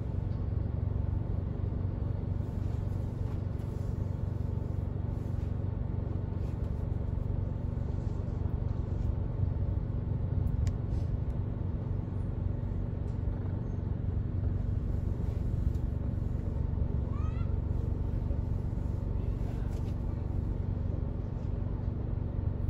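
Steady low hum of a car idling in slow traffic, heard from inside its cabin. About seventeen seconds in comes a brief rising squeak.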